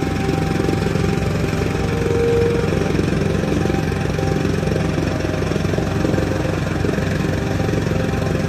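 Engine-driven threshing machine running steadily under load as crop stalks are fed in, a constant engine note with a fast low pulsing and the whirr of the threshing drum.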